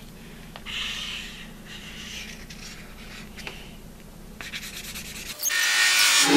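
Felt-tip markers scratching and rubbing across a paper plate in short strokes as lines are drawn. About five seconds in, a much louder hissing sound starts abruptly.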